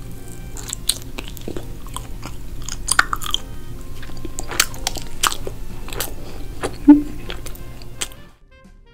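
Close-up mouth sounds of someone chewing a soft watermelon-shaped sweet, with sharp wet clicks scattered through the chewing. The chewing stops a little before the end.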